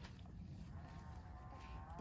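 A single bleat from farm livestock, faint and wavering, starting about a second in and lasting about a second, over a steady low rumble.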